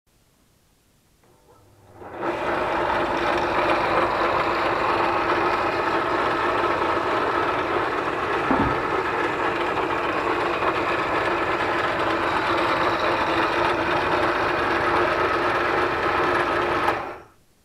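Parkside bench drill running at a steady speed: its motor and belt drive hum evenly, starting about two seconds in and cutting off just before the end. One short knock sounds about halfway through.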